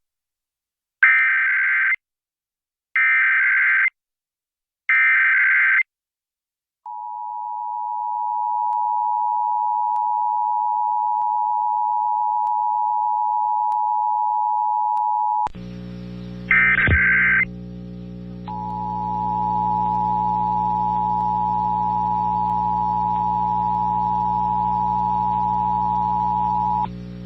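Emergency Alert System test signal: three short screeching bursts of digital SAME header data, then the two-tone attention signal, a steady tone held for about nine seconds. Midway a hum comes in with one more short data burst, and the two-tone attention signal starts again over the hum for about eight seconds.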